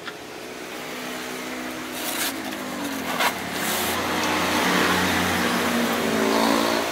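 Cardboard box being handled and pulled up off a styrofoam-packed sewing machine head: sharp taps about two and three seconds in, then rustling and scraping. Under it runs the hum of a motor vehicle engine, which grows louder in the second half.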